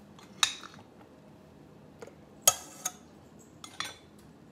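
A few sharp clinks of kitchenware as a glass lid is set on and lifted off a saucepan of boiled potatoes. The loudest clink comes about halfway through.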